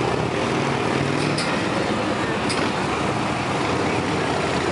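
Touring motorcycle engine running at low speed as the bike rides slowly through a cone course, over a steady rush of outdoor background noise.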